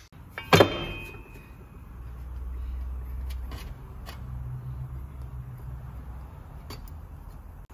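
A sharp metallic clang with a short ringing tone about half a second in, from metal tools or parts being handled under a car on a lift. After it comes a low steady hum with a few light clicks as the hands work on a fitting on the underbody.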